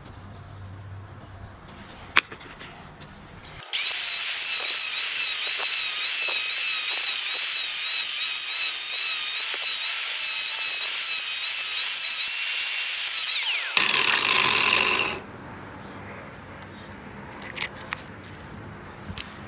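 Angle grinder cutting through the plastic housing of a satellite LNB: a loud, high whine that starts about four seconds in and wavers as the disc bites for about ten seconds, then the grinder is switched off and winds down over about a second and a half.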